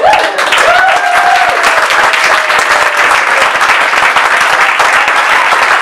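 Audience applauding: many hands clapping together, with a few voices calling out over the clapping in the first second or so.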